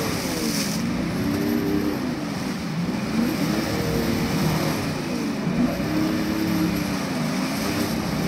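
A 4x4's engine being revved up and down repeatedly as it pushes through deep mud and water, the revs rising and falling in about four swells.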